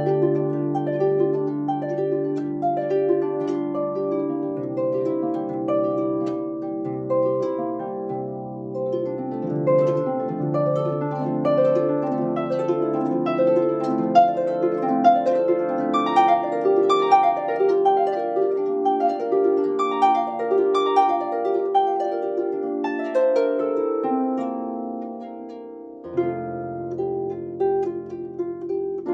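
Lever harp played solo: a steady flow of plucked notes over a bass line. Near the end the playing thins and softens, then a new phrase starts on a deep bass note.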